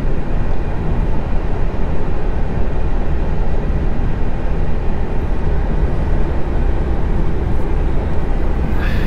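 Steady engine and road noise inside the cab of a lorry driving at speed on the motorway.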